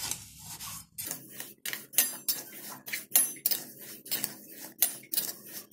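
A flat metal spatula scraping and turning raw rice grains in a steel kadhai as the rice is dry-roasted, in quick repeated strokes two or three a second. The grains rustle, and the spatula now and then clinks against the pan.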